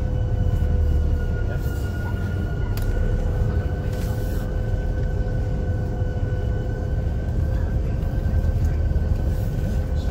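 Hovercraft engines and fans running steadily, heard from inside the passenger cabin: a deep rumble with a steady high whine over it.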